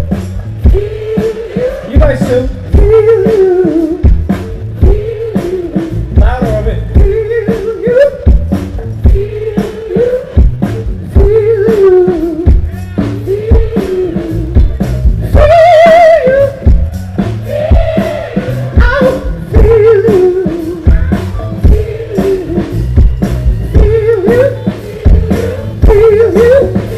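Loud live band music: a lead singer sings a melody into a microphone over a steady drum beat.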